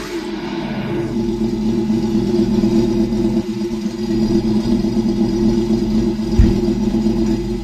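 Simulated engine sound from an ESS Dual sound module's speaker on an Axial Ryft RC crawler, settling from a rev to a steady idle about a second in, with a single brief low thump about six seconds in.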